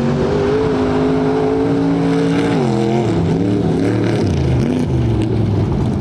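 Truck engine revving hard, held at high revs for about two and a half seconds, then dropping off and rising and falling again in short swells.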